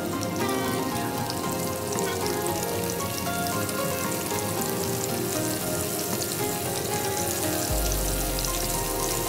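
Cornstarch-coated beef slices sizzling and crackling steadily as they shallow-fry in hot oil in a frying pan.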